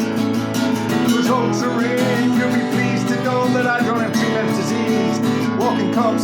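Acoustic guitar strummed in a steady rhythm, with a wavering melody line over the chords from about a second in and again near the end.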